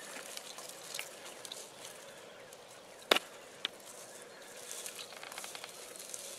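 Footsteps rustling and swishing through grass, with many small ticks and brushing sounds; one sharp, loud crack about three seconds in, followed by a smaller click half a second later.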